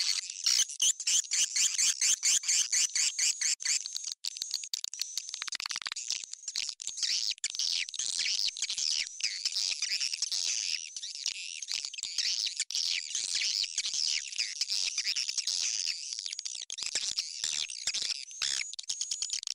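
Swiftlet lure call recording: a dense, unbroken mass of rapid, high twittering chirps and squawks from many swiftlets. It is a call sound played through tweeters in a swiftlet house to draw the birds in to roost and nest.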